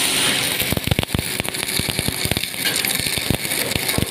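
Electric welding arc from an automatic welding carriage: irregular sharp crackling and popping over a steady hiss.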